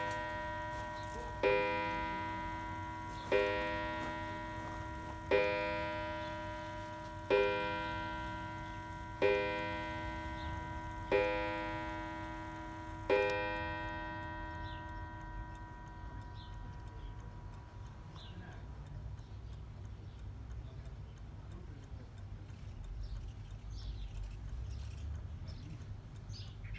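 Smiths Enfield mantel clock striking on its coiled wire gong: seven slow strokes about two seconds apart, each one ringing on. After the last stroke the gong's tone dies away.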